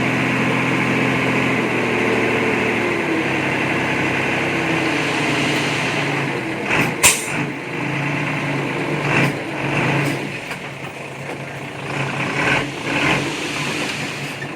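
Diesel engine of heavy earthmoving machinery running, its note changing a couple of seconds in, with a sharp metallic knock about halfway through and a few fainter knocks after it.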